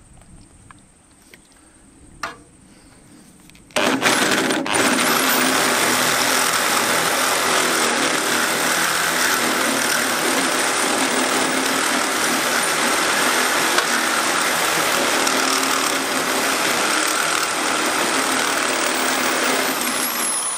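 Corded electric drill driving a hole saw through steel channel lubricated with cutting fluid. The drill starts about four seconds in and cuts steadily for the rest of the time, easing off at the very end.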